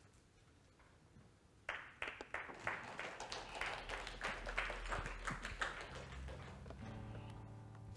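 Scattered hand clapping from a small congregation, starting about two seconds in and fading out, then a held low musical chord comes in near the end.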